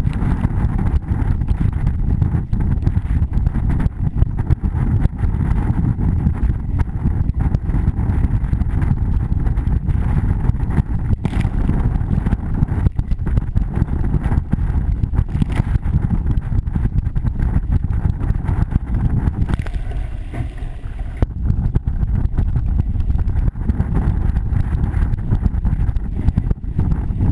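Wind buffeting the microphone together with water rushing and spraying against the hull of a small racing sailboat moving at speed. It is a steady, loud rumble that eases briefly about twenty seconds in.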